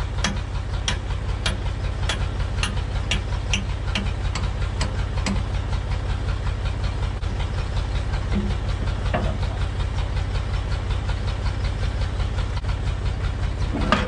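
Old Massey Ferguson backhoe's engine running steadily, with sharp regular ticks about every half second for the first five seconds and a couple of single metallic clanks later on.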